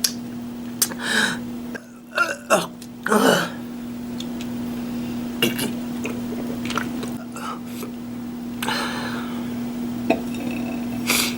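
A person eating deviled eggs: short wet chewing and mouth sounds and small throat noises, the biggest cluster in the first three or four seconds, over a steady low hum.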